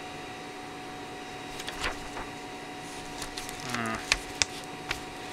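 A thin laser-cut stencil sheet being handled and flexed in the hands: scattered crackles, then a few sharp clicks and pops from about four seconds in, over a steady hum.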